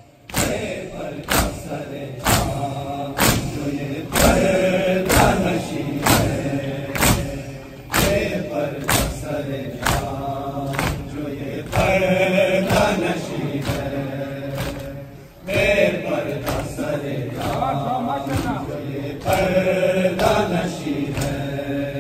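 Crowd of men doing matam: open hands striking bare chests together, about once a second, with voices chanting over the beat.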